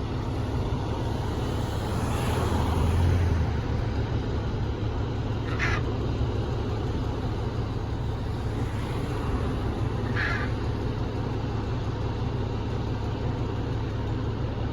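A fire truck's engine runs steadily with a low rumble that swells briefly about two to three seconds in, while a hyacinth macaw gives two short harsh squawks, about six and ten seconds in.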